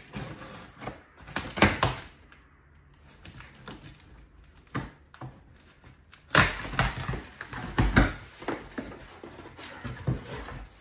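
Packing tape being ripped off the top seam of a cardboard shipping box, in a short rip about a second and a half in and a longer, louder tearing stretch from about six to eight seconds, then the cardboard flaps being pulled open.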